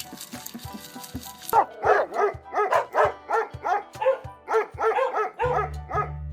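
Background music, then from about a second and a half in an animal calling in a quick run of short calls that each rise and fall in pitch, about three a second.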